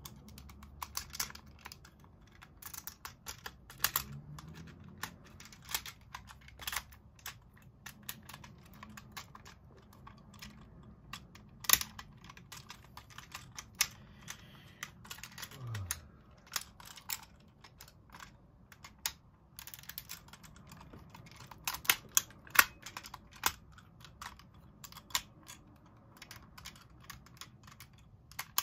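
Plastic joints and panels of a Super Wings transforming plane toy clicking and snapping irregularly as it is folded by hand between plane and robot form.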